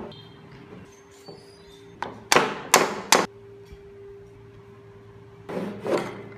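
Wooden toy car parts, the chassis and carved wooden wheels, knocking against each other and the hard floor as they are handled: four sharp knocks about two to three seconds in, then two more near the end.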